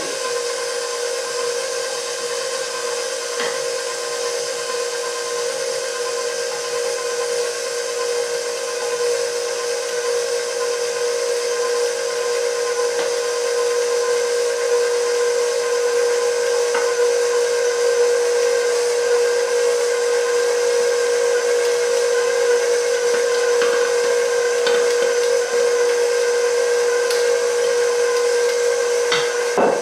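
Electric stand mixer running steadily at medium-low speed, its flat beater turning cake batter: a constant motor whine, with a few faint taps.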